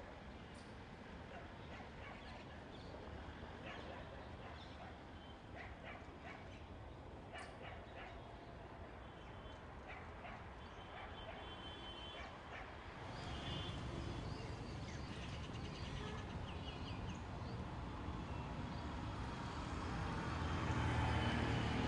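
Outdoor ambience: a steady background hiss with scattered short bird chirps and clicks, and a low rumble that grows louder about halfway through and again near the end.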